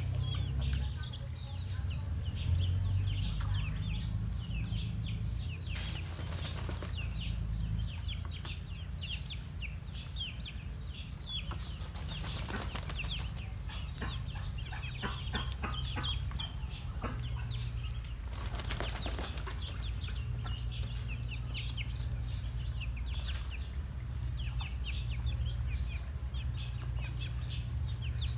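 Muscovy ducklings peeping constantly in short high calls, several a second, with three brief bursts of splashing as they bathe in a shallow water basin, over a low rumble.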